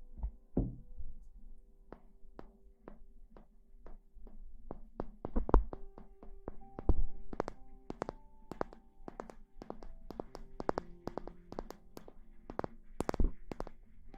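Irregular sharp taps and knocks close to the microphone, a few of them much louder than the rest, over soft background music holding steady notes.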